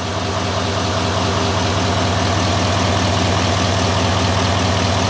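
L5P Duramax 6.6-litre V8 turbo-diesel engine idling steadily.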